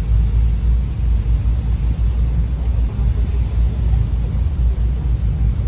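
Steady low rumble of wind buffeting a phone's microphone on the deck of a moving cruise boat.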